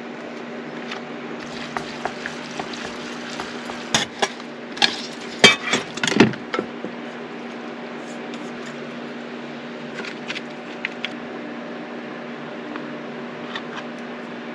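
Chopsticks and utensils clinking and knocking against stainless steel bowls and pots while noodles are mixed with sauce, a quick cluster of louder knocks a few seconds in and lighter taps later, over a steady low hum.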